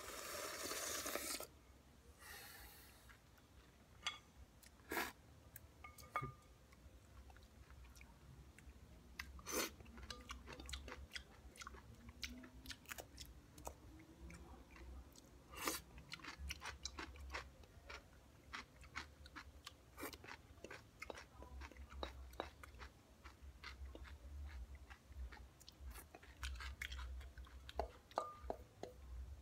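A loud slurp of the last salad juice from a glass bowl, then chewing and crunching of leftover shopska salad (cucumber, tomato, onion and sirene cheese), with scattered clicks of a wooden spoon scraping the glass bowl.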